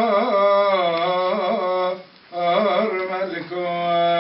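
A man's voice chanting a Syriac liturgical hymn from a prayer booklet: long held notes with ornamented turns between them, breaking briefly for breath about two seconds in.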